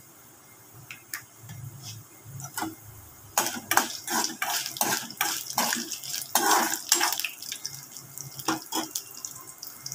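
Steel spoon scraping and clinking against a metal kadai while stirring chana dal and dried red chillies frying in a little hot oil, with a light crackle. The clicks and scrapes come thickest through the middle of the stretch.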